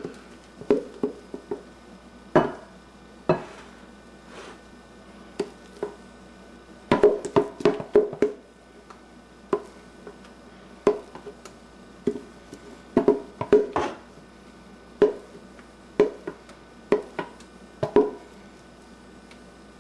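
A utensil knocking and scraping against a metal pot as mashed potatoes are scraped out into a casserole dish: irregular clacks, some in quick clusters, each with a brief ring.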